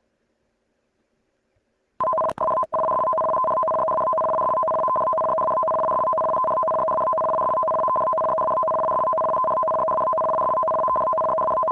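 Emergency broadcast alert tone: two steady electronic pitches sounding together. It cuts in about two seconds in, stutters twice, then holds without a break.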